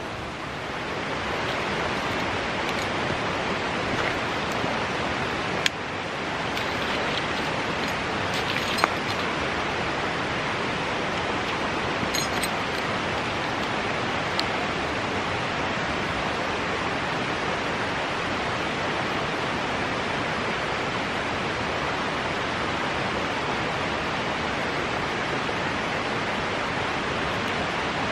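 Steady rushing noise, with a few short sharp clicks about six and nine seconds in.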